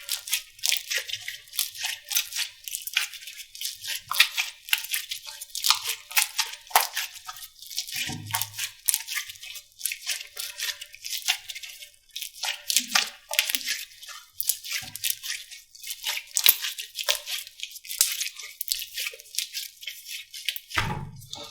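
Slime being squeezed and poked by hand, giving a dense, irregular run of sticky crackling clicks, with a soft low thump about eight seconds in and another near the end.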